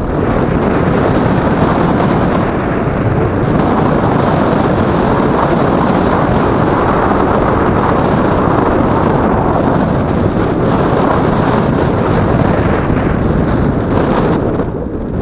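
Airflow rushing over the microphone of a paraglider in flight, a loud, steady roar that eases slightly near the end.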